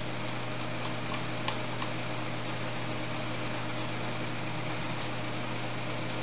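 Steady low hum and hiss of workshop room noise, with a few faint light metal clicks between about one and two seconds in as a screwdriver and wrench work the rocker-arm adjuster while the valve clearance is set.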